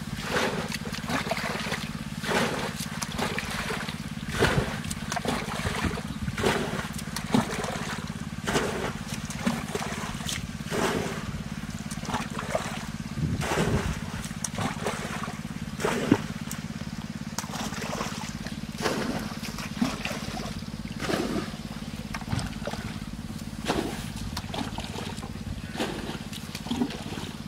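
Shallow ditch water splashing and trickling again and again, as hands grope and scoop for fish, about once every one to two seconds, over a steady low hum.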